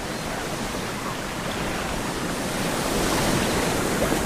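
Baltic Sea surf breaking and washing over a stony shore, a steady rushing noise with some wind, growing a little louder in the second half.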